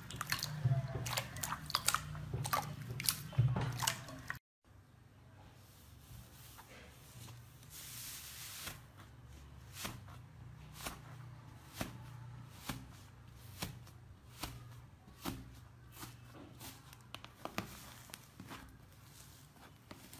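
Hand-squeezed glossy slime giving off wet, sticky clicks and pops. After a brief break about four seconds in, a thick pink slime is pulled apart and kneaded, with quieter, frequent crackling clicks.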